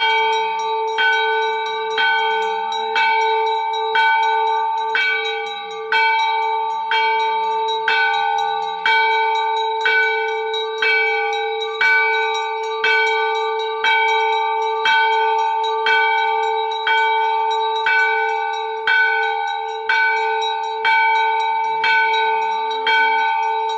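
Hindu temple bell struck steadily about once a second, each stroke ringing on into the next, as it is rung during the aarti.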